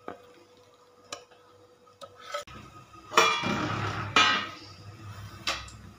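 Stainless steel plates and a steel dhokla steamer clinking and clattering: a few light clinks, then two loud metallic clangs about three and four seconds in and one more sharp clink near the end. A low steady rumble sits underneath from about halfway.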